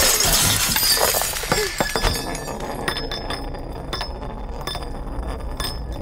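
A loud clattering crash with clinking in the first two seconds, then a small metal disc rolling and wobbling on a wooden floor, giving off scattered sharp clinks and ticks.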